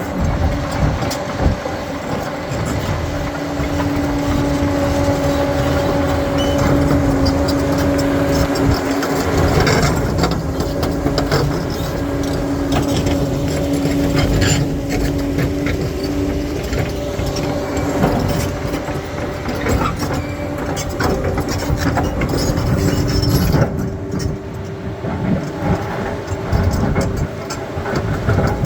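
Crawler bulldozer working: its diesel engine runs steadily with a droning tone, over continuous clatter of steel tracks and knocks and cracks of stone as it pushes through rocky ground.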